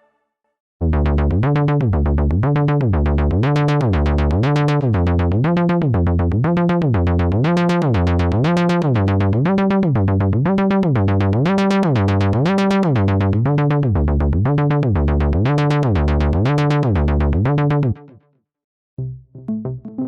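Arturia JUN-6V software synthesizer, an emulation of the Roland Juno-60, playing a dense sustained patch whose filter sweeps open and shut in a fast even rhythm, brightening and darkening over and over. It stops near the end, and after a short gap a patch of short plucked notes begins.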